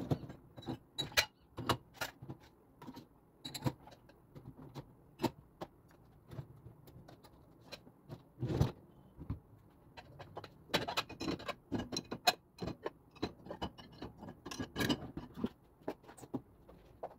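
Dishes, glasses, plastic bowls and cutlery being loaded into the wire racks of an Electrolux dishwasher, with a rack sliding on its rails: irregular clinks, clatters and rattles, the loudest knock about halfway through.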